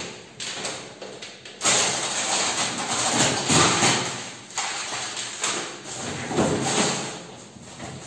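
Plastic food packets rustling and knocking as they are handled and set into the wire basket of a chest freezer, louder from about a second and a half in.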